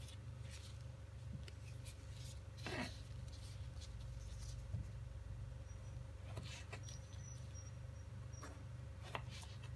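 Kitchen knife slicing bolete mushrooms on a wooden cutting board: a few soft, scattered cuts and light knocks of the blade on the board. A steady low hum runs underneath.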